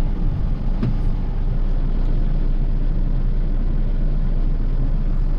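Steady low rumble of a car heard from inside the cabin, with one faint click about a second in.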